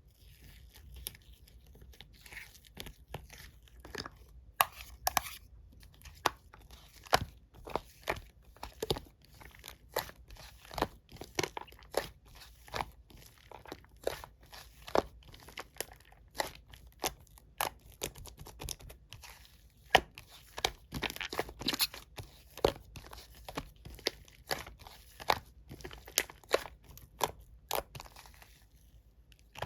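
Close-up crinkling, tearing and crunching of snacks and their packaging, in irregular sharp crackles several times a second.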